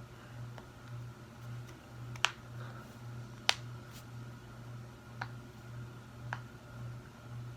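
Knuckles cracking: two sharp pops a little over a second apart, then two fainter pops, over a low pulsing hum.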